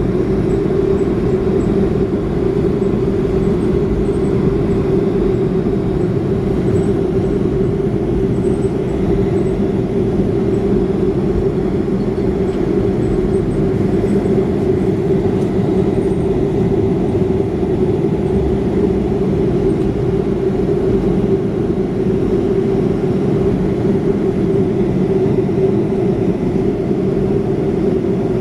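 Boeing 737 cabin noise in flight: the steady drone of the jet engines and airflow heard from inside the cabin, a strong low hum that holds even throughout.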